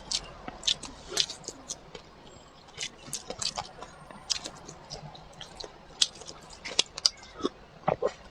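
Close-up eating sounds: chewing and biting with wet, squishy mouth sounds and irregular sharp clicks and smacks.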